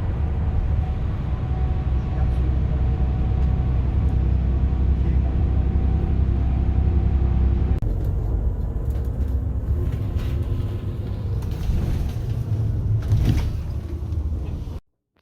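Steady low rumble of a moving vehicle heard from inside, with a faint hum of tones over it. It changes abruptly a little past halfway and cuts off suddenly near the end.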